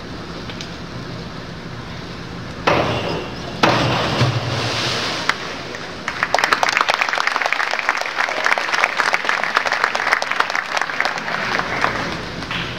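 Diving springboard banging at takeoff, then the diver's entry splash about a second later, then hand-clapping applause from the poolside spectators for around six seconds, over the steady hum of the pool hall.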